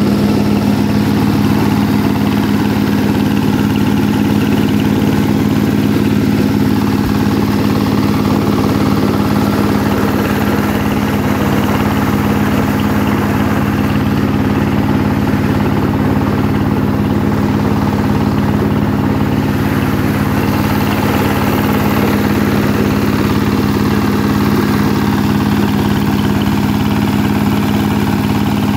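An SJ12 corn sheller machine and its engine running steadily, a constant loud drone that holds the same pitch throughout.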